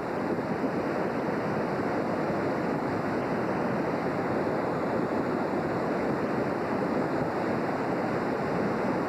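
The flooded North Fork Wilson River rushing past in a steady, unbroken wash of water noise.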